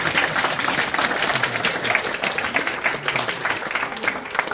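Audience applauding, many hands clapping at once, slowly fading toward the end.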